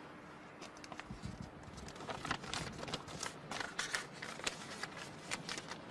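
Close rustling and crackling of something being handled, with a low thud about a second in and a quick run of crisp rustles and clicks about two to four seconds in.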